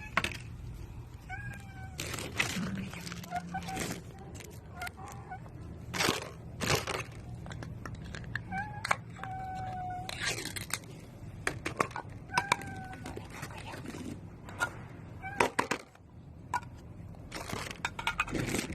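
A cat meowing again and again in short, fairly level calls, mixed with frequent clicks and knocks.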